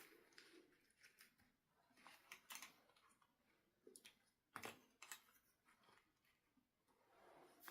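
Faint handling noises: scattered sharp clicks and short crinkly rustles, the loudest a single click about four and a half seconds in.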